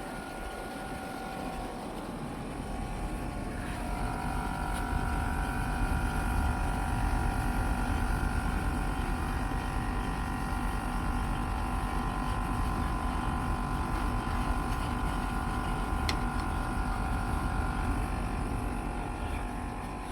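Outdoor unit of a Sharp split air conditioner running with a steady hum and whine, just fitted with a new capacitor. About four seconds in, new tones come in and it grows louder, as the unit picks up.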